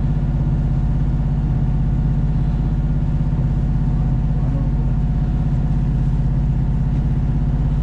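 Boat engine running steadily under way, an even low drone that holds constant throughout.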